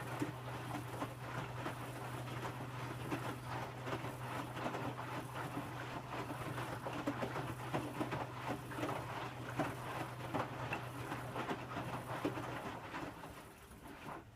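Electrolux W455H commercial washing machine tumbling its drum in the wash, with water sloshing and laundry dropping over a steady motor hum, partway through heating the water to 60 °C. Near the end the hum stops and the sloshing dies away as the drum comes to rest.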